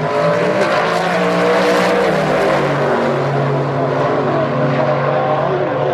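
Two Super Pro drag racing cars launch off the start line and accelerate down the strip at full throttle. The engine sound is fullest over about the first two seconds and eases slightly as they pull away.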